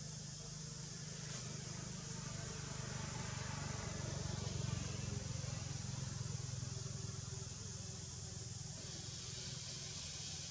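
Steady outdoor background: a low rumble, like a distant vehicle, that swells gradually toward the middle and eases off again, over a constant high hiss.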